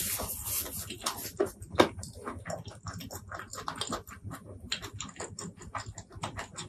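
Close-miked mouth sounds of someone chewing food, with wet smacking and a run of small sharp clicks.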